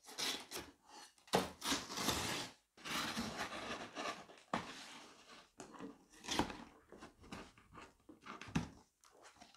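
Packaging being opened and handled: irregular rustling and tearing, with a few sharp knocks.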